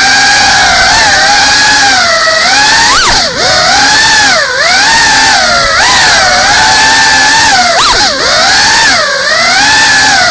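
FPV quadcopter's brushless motors and propellers whining, picked up close by the drone's onboard camera. The pitch swings up and down over and over as the throttle changes, with several brief sharp dips and spikes.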